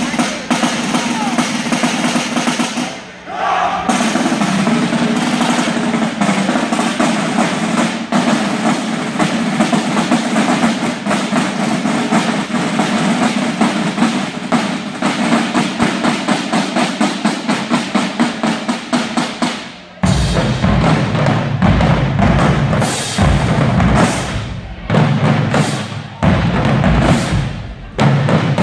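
Marching drumline of snare drums, tenor drums, bass drums and crash cymbals playing a fast, dense cadence. About twenty seconds in it switches abruptly to heavier, separate bass-drum hits punctuated by cymbal crashes.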